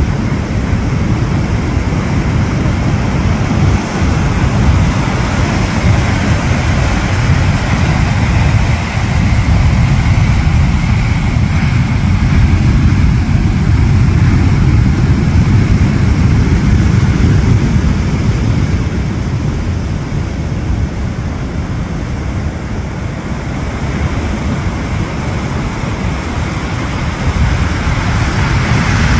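Pacific Ocean surf breaking and washing over a rocky shore: a continuous noise, heaviest in the low end, that swells and eases over several seconds.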